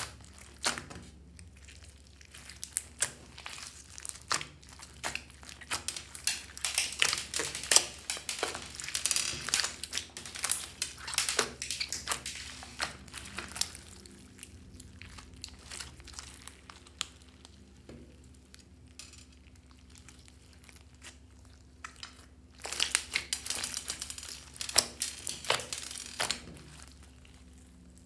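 Hands kneading and squeezing a large mass of glossy slime mixed with clay and makeup, giving irregular sticky pops and crackles as air pockets in it burst. The sounds come in busy spells, with a quieter, sparser stretch in the middle.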